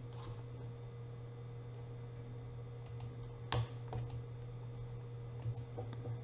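A few sharp clicks of a computer keyboard and mouse about halfway through and again near the end, over a steady low electrical hum.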